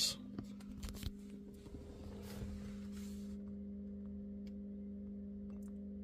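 Steady low electrical hum of a few fixed tones from somewhere between the footwell and the engine bay of a 2011 VW Touareg, ignition on and engine not running. The owner cannot trace the hum and ties it to the car refusing to crank. A few faint rustles in the first second or so.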